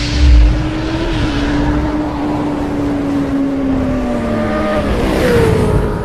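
Motorcycle engine sound effect: a deep boom at the start, then a steady engine note that slowly sinks in pitch, and a whoosh about five seconds in.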